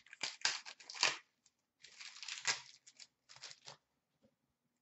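Trading card pack wrapper crinkling and a stack of hockey cards being handled, in three short bursts of rustling, the loudest about a second in.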